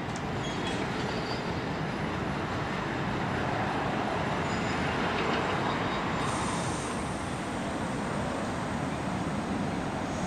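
Alstom Citadis 302 tram running towards the listener along its track, a steady rolling rumble and hum that swells a little as it nears. A thin high whine joins about six seconds in.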